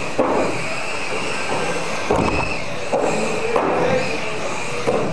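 Electric radio-controlled mini cars racing on a carpet track: a steady high motor whine mixed with tyre noise, with a few sudden louder moments.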